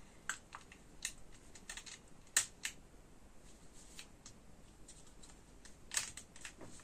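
Scattered light plastic clicks and taps as the opened casing and parts of an Aiwa PX477 cassette walkman are handled and fitted by hand, the sharpest about two and a half seconds in and another near six seconds.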